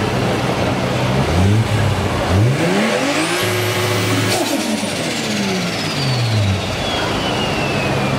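Tuned Nissan Skyline R34's straight-six, fitted with a large single turbocharger, revved while standing still. It gives a quick blip about a second in, then climbs and holds at high revs briefly around the middle before falling back to idle. A high turbo whistle rises with the rev and fades slowly after it.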